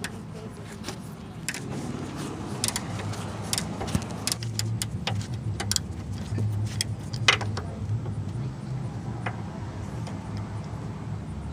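Irregular metallic clinks and clicks of a 3/4-inch socket and wrench being worked on the castle nut of a Jeep track bar, over a steady low hum.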